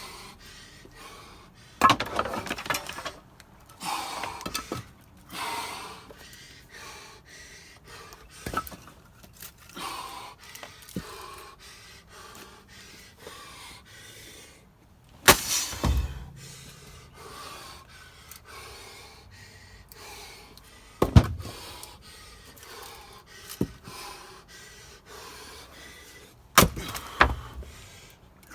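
Ash firewood being split by hand: about five sharp axe strikes spaced irregularly several seconds apart, with heavy breathing between them.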